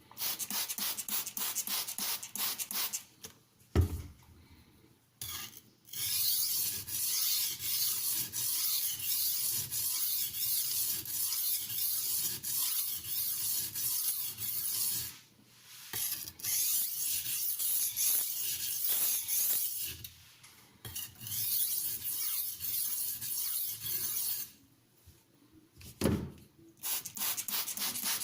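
Stainless steel knife blade stroked back and forth on an aluminium oxide whetstone: a steady scraping rasp in long runs of strokes, broken by short pauses about 4, 15, 20 and 25 seconds in.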